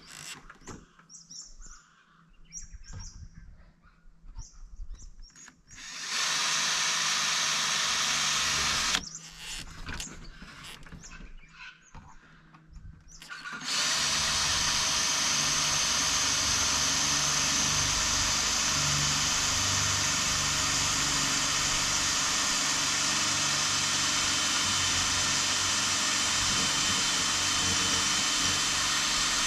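Power drill drilling a pilot hole in an awning roller drum. A short run of about three seconds is followed by a pause with handling noises, then a long steady run from about halfway through.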